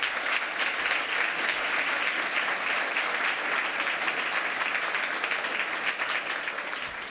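Audience applauding steadily after a speech, a dense patter of many hands clapping that eases off slightly near the end.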